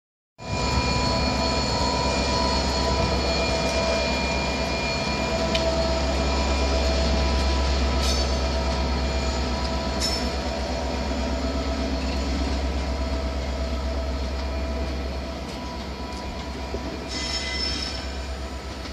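Class 59 freight locomotive 59205 passing with its EMD two-stroke diesel running, a strong low hum that fades away after about fifteen seconds as the hopper wagons follow. The wagon wheels click over rail joints a couple of times and give a brief high squeal near the end.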